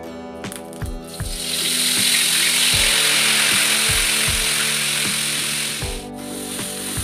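Spice paste sizzling in hot oil in a wok: a loud, even hiss that starts about a second in and cuts off abruptly near the end. Background music with plucked guitar notes plays underneath.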